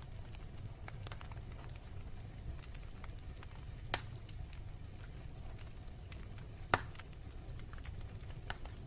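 Wood fire in a fireplace crackling: a low steady rumble under scattered small crackles, with two louder pops, about four seconds in and near seven seconds.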